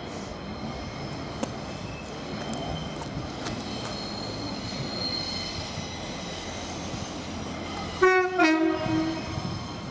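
A Class 142 Pacer diesel multiple unit running in on approach with a steady rumble, then sounding a short, loud two-note horn about eight seconds in.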